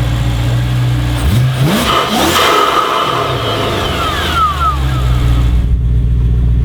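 Supercharged 4.6-litre V8 of a G-Power BMW M3 Hurricane RS with an Akrapovic exhaust, idling and then blipped once. It revs up sharply about a second in and drops back to idle by about five seconds, with a high supercharger whine that falls in pitch as the revs come down.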